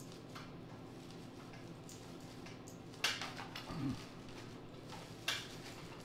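Small metallic clicks and clinks of hand tools working the screws that hold the shield over the Tecumseh engine's carburetor, with two louder sharp clacks about three and five seconds in.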